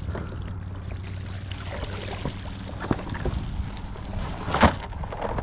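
Water pouring and dripping off a cast net as it is hauled up out of the water into a kayak, with scattered small clicks and one sharp knock near the end.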